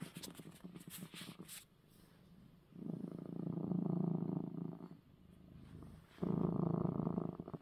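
Domestic cat purring while being stroked, the purr swelling loud twice with its breathing, about three seconds in and again about six seconds in, and dropping low in between. Brief rustling of handling in the first second and a half.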